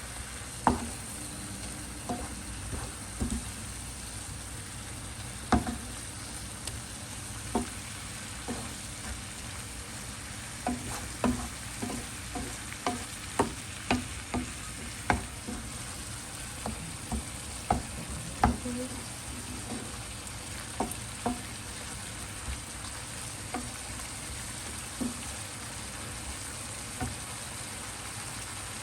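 Onions, garlic, bacon and chouriço sizzling in olive oil in a pan with tomato sauce just added, stirred with a utensil that knocks irregularly against the pan, the knocks coming thickest in the middle.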